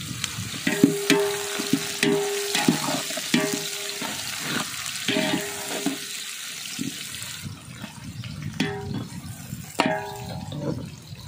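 Sliced onions sizzling in hot oil in a large metal pot, stirred with a long-handled flat metal ladle that scrapes and knocks against the pot about a dozen times. The hiss thins out about seven and a half seconds in.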